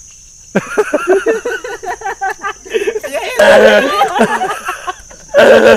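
A group of young people's voices laughing and shouting excitedly over one another, louder in two outbursts in the second half. A steady high insect drone, like crickets or cicadas, runs behind.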